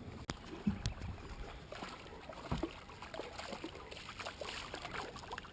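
Faint river water trickling and lapping, with scattered small clicks and low knocks, one sharp click shortly after the start.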